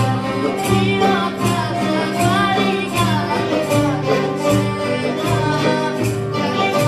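Live Greek rebetiko song played by a large ensemble of bouzoukia, guitars and accordion, strummed over a steady bass beat, with a girl singing the melody.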